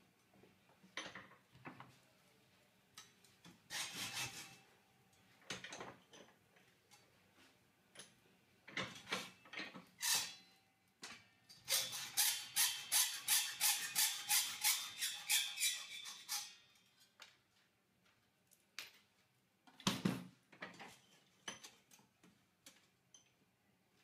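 Steel cable tray being shifted and clamped in a bench vise, with scattered metal knocks and rubbing. Then a hacksaw cuts the steel tray in quick, even strokes, about three a second, for several seconds, and there is a single knock near the end.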